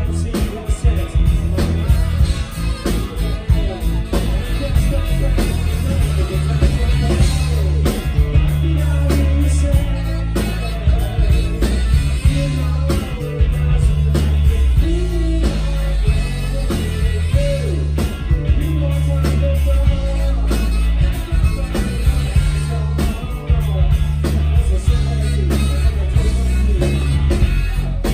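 Live rock band playing loud through a PA: electric guitars, bass and drums, with a singer.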